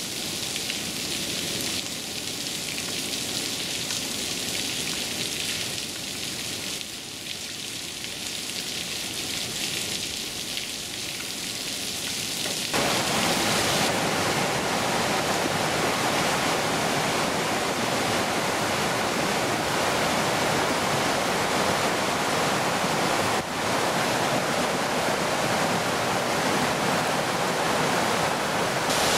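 Water dribbling and pattering down a rock cliff. About 13 seconds in, this gives way to the louder, steady rush of Matthews Creek running over rocks.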